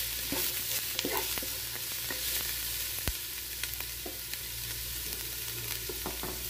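Chopped onions and cumin seeds sizzling in hot oil in a nonstick pan, a steady sizzle with scattered small pops and crackles. A wooden spatula stirs through them at first, and there is one sharper click about three seconds in.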